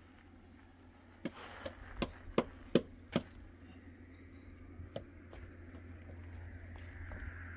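A quick run of about six sharp knocks over two seconds, then one more a couple of seconds later. Behind them runs a faint, evenly pulsing high chirp.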